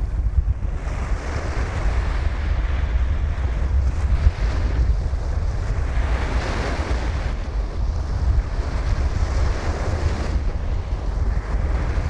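Sea surf: waves washing in and out, the hiss swelling and fading every few seconds, over a steady low wind rumble on the microphone.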